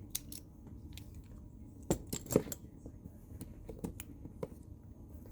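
Small metallic clicks and scrapes of comb picks being worked in a lock's keyway, with two sharper clicks about two seconds in.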